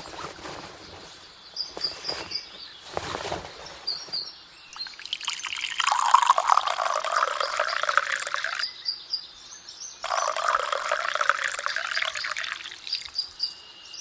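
Liquid being poured in two stretches of a few seconds each, each starting and stopping abruptly, after some light scraping and clicking. Small birds chirp in the background.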